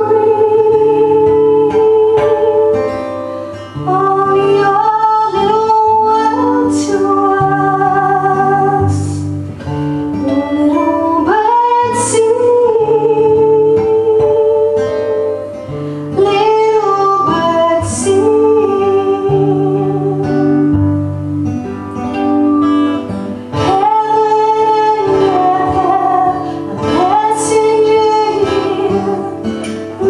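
A woman singing a folk song with a light vibrato on her held notes, accompanying herself on acoustic guitar.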